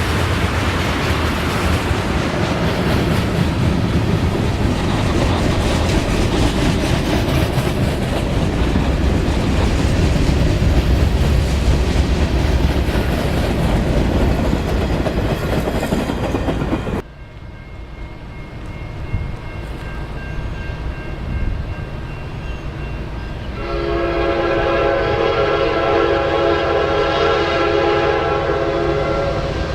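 A freight train rumbles past close by with steady wheel-on-rail noise, then cuts off abruptly a little over halfway through. After a few quieter seconds, a locomotive air horn sounds a long, steady chord that is held to the end.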